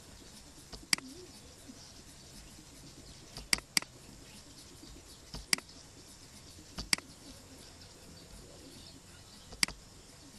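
Computer mouse button clicking six times at irregular intervals, including one quick pair, over a faint background hiss.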